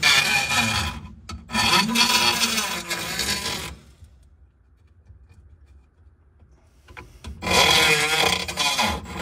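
A tool cutting into the dash panel to open up the hole for a fuel gauge: a harsh scraping cutting noise in three bursts, with a short break about a second in and a longer quiet spell before the last burst near the end.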